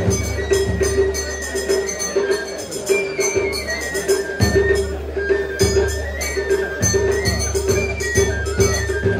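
Japanese festival hayashi music: a high flute melody moving in steps over a fast, steady beat of metallic strikes and drums.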